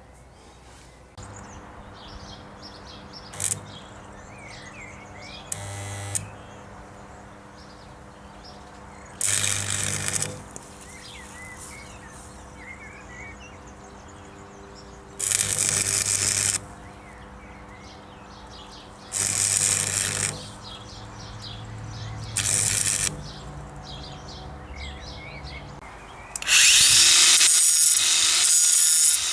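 Electric angle grinder run in four short bursts, then grinding steel steadily near the end, working on the torn-off axle bracket of a ride-on mower to prepare it for welding. Faint birdsong between the bursts.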